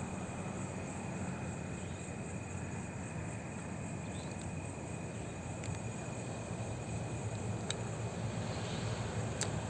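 Night insects, crickets, keeping up a steady high trill over a low, even rumble, with a few sharp clicks in the second half.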